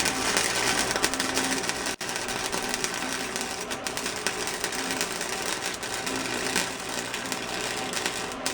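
Flux-core wire-feed welder laying a bead: the arc makes a steady, dense crackle, broken by a very short stop about two seconds in.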